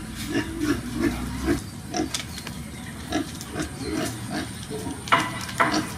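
Soft, short animal grunts repeating about two or three times a second, with two sharp clicks about five seconds in.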